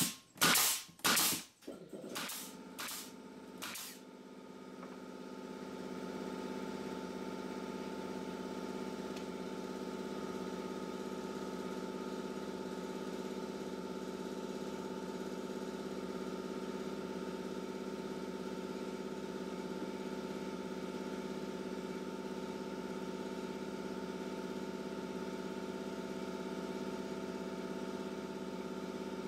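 A Makita pneumatic stapler fires a quick run of staples into a wooden cleat over the first four seconds, zigzagging down its length. Then a steady machine hum with several fixed pitches sets in and holds: the air compressor running to refill.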